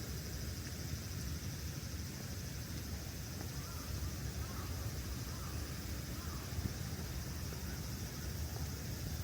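Steady outdoor ambience: a low rumbling rush with a steady high hiss over it, and a few faint short calls in the middle.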